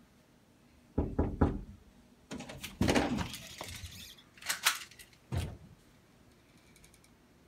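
Interior house door being opened: three quick thumps about a second in, a scraping rattle, then two sharp knocks and a last thump.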